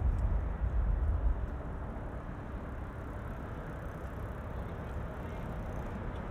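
Steady hum of city road traffic. A gust of wind rumbles on the microphone for the first second and a half, then eases.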